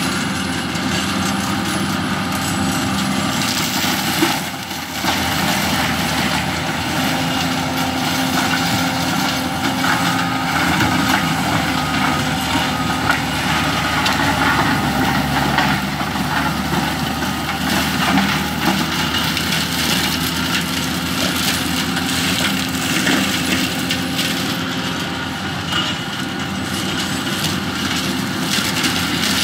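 Bobcat T870 compact track loader's diesel engine running hard under load while its 50-inch forestry mulcher head spins, the knives chewing through brush and small pines with a steady crackle of splintering wood. The load eases briefly about five seconds in.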